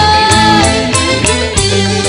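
Live dangdut band music: electric bass and drums under a held, wavering melody note that ends under a second in.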